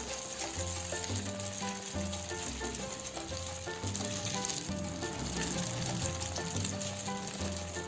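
An egg deep-frying in a shallow pan of hot oil, sizzling steadily as it crisps, with background music playing over it.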